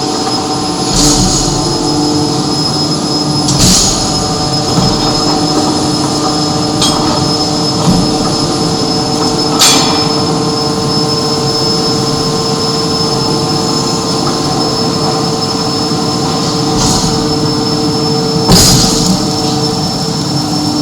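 A steady, multi-pitched machine whine runs throughout. About seven sharp metallic knocks come at irregular times, each followed by a short ring, typical of metal being struck in a forge.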